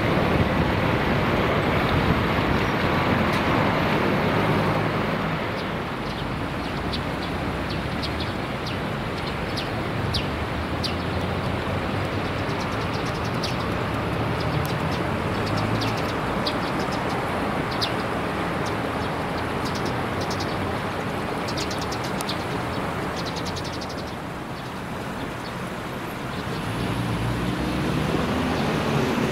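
Steady hum of road traffic, with small birds chirping in quick, high bursts through most of the middle.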